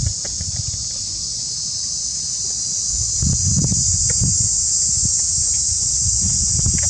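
Steady, high-pitched insect chorus over a low, uneven rumble that gets louder about three seconds in, with a few faint clicks.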